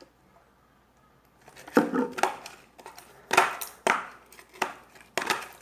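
Knocks and clatters of a pot and spoon being handled, with about half a dozen sharp strikes starting about two seconds in.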